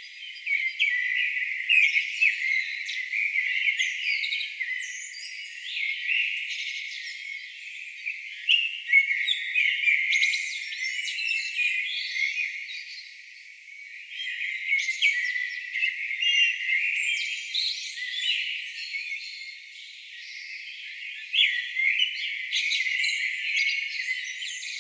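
A chorus of songbirds singing, many short chirps and trills overlapping without pause, all high-pitched with nothing low underneath.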